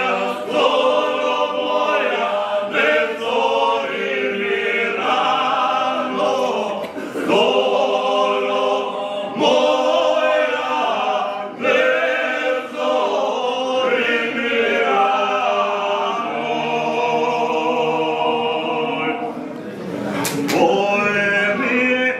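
Male vocal group singing a folk song a cappella, the men's voices together in held phrases of two to three seconds each.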